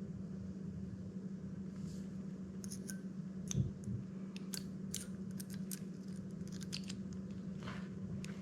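Small sharp clicks and ticks of the metal parts of a disassembled baitcasting reel being handled, with one soft thump about three and a half seconds in.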